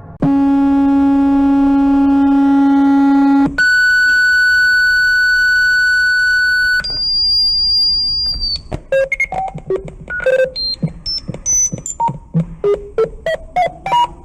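Synthesized emergency alert alarm for Vatican City: a long low buzz, then a steady mid-pitched tone about three and a half seconds in, then a high whistle near seven seconds. After that comes a fast, erratic run of short beeps that jump up and down in pitch.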